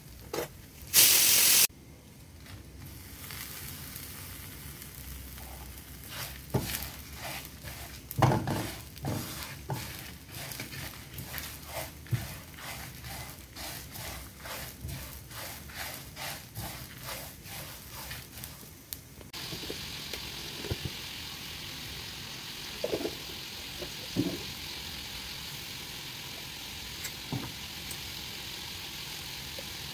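Whole spices dry-roasting in a nonstick pan: a spatula scrapes and stirs coriander seeds, dried red chillies and curry leaves in quick strokes, after a short loud burst about a second in. About two-thirds through the sound changes to a steady hiss of oil heating in a clay pot, with a few light knocks.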